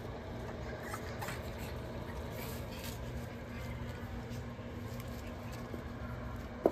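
Puppies' paws scuffing and pattering on puppy pads over a steady low hum, with one short sharp sound near the end.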